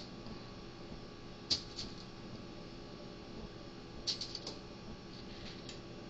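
Light clicks and taps as coated acorn squash slices are set down and shifted on a parchment-lined baking tray: one sharp tap about a second and a half in, a quick run of taps a little past the middle, and a few fainter ones after, over a steady low hum.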